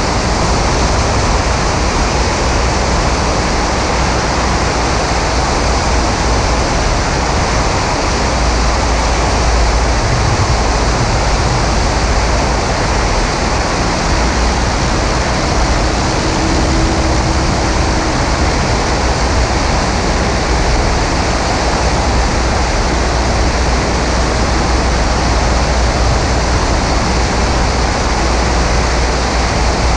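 Steady rush of wind over a camera mounted outside a light plane's fuselage in flight, with the Maule M5-180C's engine and propeller drone mixed in underneath.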